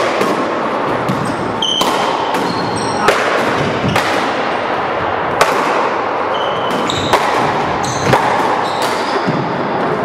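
Paddleball rally in an enclosed court: a sharp crack every second or two as the ball is struck by the solid paddles and hits the walls, each ringing in the hall's echo, with short sneaker squeaks on the hardwood floor between shots.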